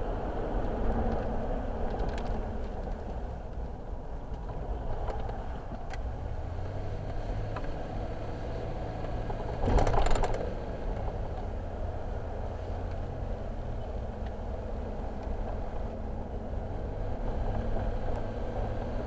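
A car driving, with steady engine and road-tyre noise. About ten seconds in there is a brief, louder whoosh.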